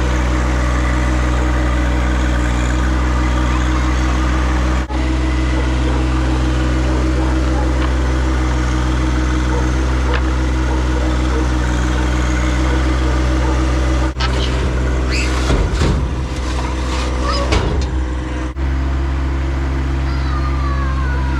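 Tractor diesel engine running steadily under work, with high squeaks for a few seconds about two-thirds of the way through.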